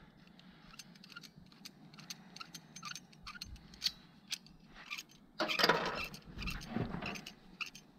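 Light scattered clicks and small metallic rattles of parts and tools being handled, with a louder scraping rustle about five and a half seconds in. The engine is not running.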